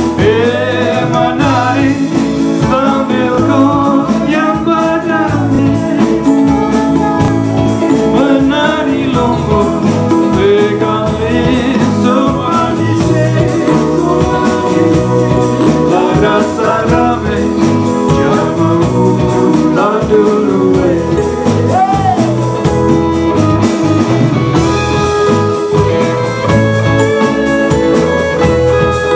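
Band music: a singer's wavering melody over guitar and a steady bass pulse, giving way to an instrumental passage about three-quarters of the way through.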